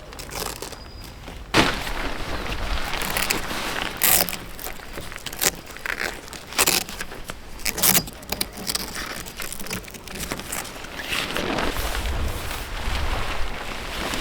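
Camping gear being handled and packed away: a run of irregular knocks, clinks and clatters over rustling, with sharper knocks about 1.5, 4, 6.5 and 8 seconds in.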